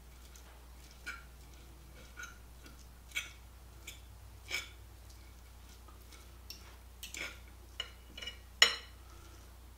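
Two metal forks clinking and scraping against a plate while pulling apart cooked chicken breast: irregular light taps, a few grouped close together, the loudest near the end.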